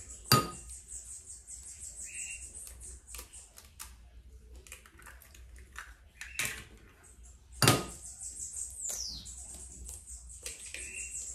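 Eggs being cracked against the rim of a mixing bowl: a sharp knock about a third of a second in, another two near six and a half and nearly eight seconds in, the last the loudest, with small clicks and taps of shell in between.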